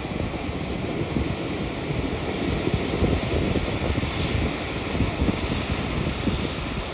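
Steady rumble of a Shannon-class lifeboat's diesel engines and waterjets running while it holds in the shallows, mixed with gusty wind on the microphone. A small wave washes onto the pebbles about four seconds in.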